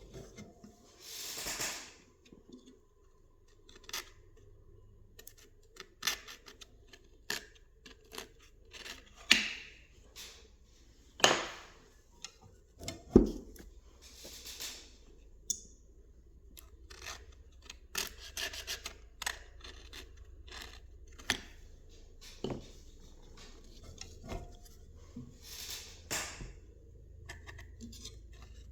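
Scalpel blade scraping old foam surround residue off the edge of a McIntosh car speaker cone: irregular short scrapes and light ticks, with a few louder, longer strokes.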